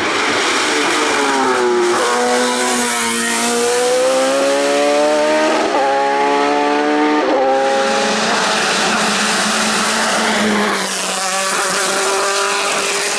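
Race car engine at high revs as an open-wheel single-seater accelerates uphill, its pitch climbing between several quick gear changes. Near the end a second race car, a sports prototype, is heard instead.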